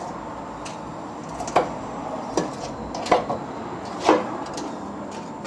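Metal clinks as a brake caliper and its hanging wire are handled: four sharp clinks with a short ring, a second or less apart.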